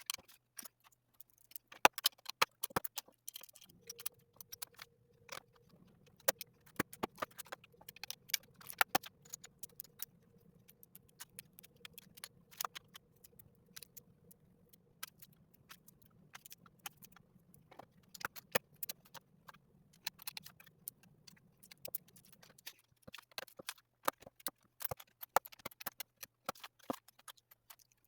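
Plastic LEGO bricks clicking and rattling as pieces are handled and pressed together: a rapid, irregular run of sharp clicks.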